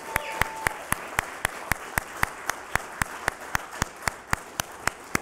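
A small crowd applauding, with one person's sharp claps close to the microphone standing out at an even four or so a second.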